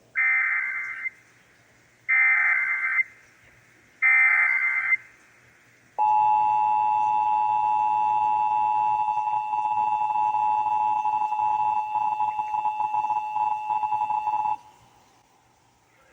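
Emergency Alert System signals on AM radio: three warbling bursts of SAME digital header data, each about a second long and two seconds apart, then the steady two-tone EAS attention signal held for about eight and a half seconds before it cuts off. Together they open an EAS activation, here for a severe thunderstorm warning.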